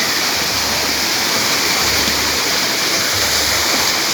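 Waterfall rushing, a loud, steady hiss of falling water.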